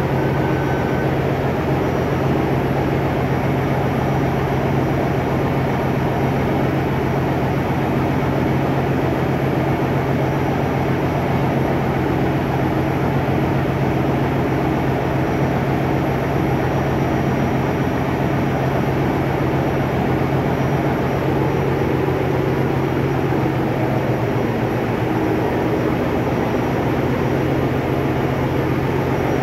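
Steady engine-room noise of running marine diesel generator engines: a loud, unbroken low drone with a constant hum, unchanging throughout.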